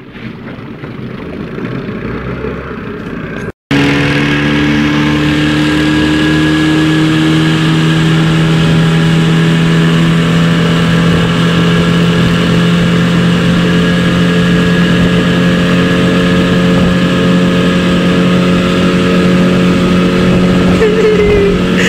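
Small outboard motor pushing an open boat along at speed. Its level climbs for the first few seconds and breaks off for an instant about three and a half seconds in. After that the engine runs loud and steady at an even pitch.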